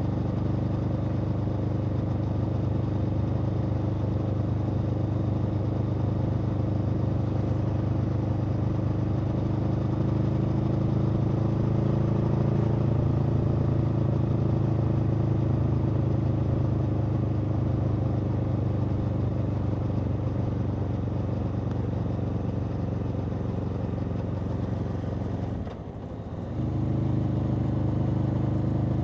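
Aprilia Tuono V4's V4 engine running steadily under way at an even pitch. About three-quarters of the way through it briefly drops in level and pitch, then picks up again.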